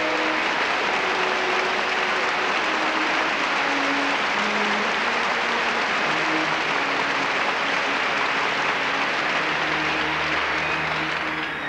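Theatre audience applauding, with the orchestra playing softly underneath. The applause dies away near the end as the music carries on.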